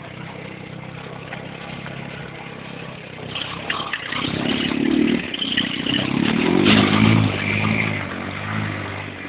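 Small 50cc engine of a Linhai Joker quad running steadily at low revs, then revving up from about three seconds in, its pitch rising and falling as it is driven through snow.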